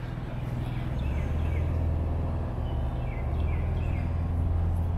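A low steady rumble, louder from about a second in, with small birds chirping repeatedly in short falling notes.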